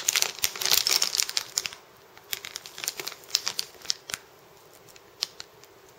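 Packaging crinkling as it is handled and opened. The crinkling is dense for about the first two seconds, then thins to scattered crinkles and small clicks that die away about four seconds in, with one last click near five seconds.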